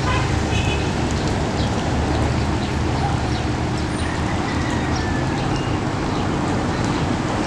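Heavy diesel machinery running steadily, a low engine rumble while an excavator is being lowered into a drainage channel.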